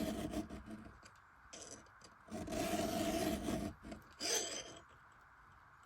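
A hand file scraping across a chainsaw ripping-chain cutter, about four strokes with the longest in the middle, then it stops about a second before the end. The filing is working a thin burr of metal off the cutter's edge, which is about to break off.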